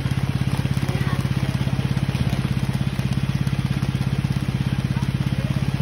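Riding lawn mower's engine running steadily at idle, a fast, even chugging pulse.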